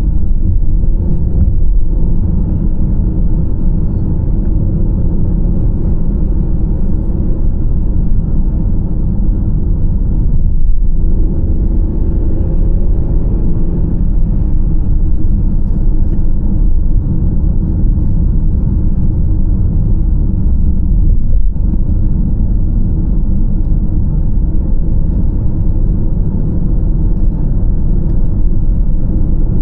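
Steady low rumble of a car driving on asphalt: tyre and road noise with the engine underneath, heard from inside the car's cabin.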